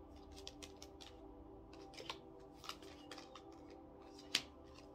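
Oracle cards being handled and laid down on a cloth-covered table: a string of light flicks and taps, with one sharper snap about four and a half seconds in, over faint background music.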